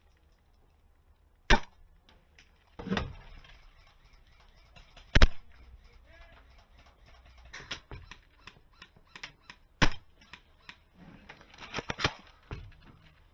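Spring-powered JG Bar 10 (VSR-10 type) airsoft sniper rifle firing: sharp single shots a few seconds apart, with smaller clicks and knocks in between.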